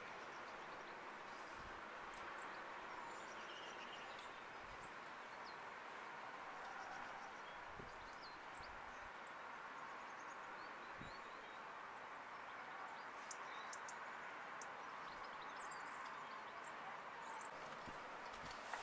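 Faint, scattered high chirps and short calls from small garden birds, more frequent in the second half, over a steady background hiss of outdoor noise.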